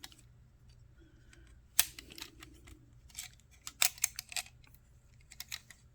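Sharp metal clicks and snaps from a Leatherman multi-tool being handled as its saw blade is opened out. They come irregularly, with the loudest one about two seconds in and a quick cluster around four seconds.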